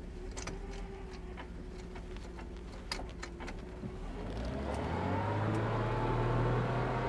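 A 1979 pickup truck's engine pulling through a mud puddle in two-wheel drive with the front hubs unlocked, running steadily with a few clicks, then revving up and getting louder about four seconds in.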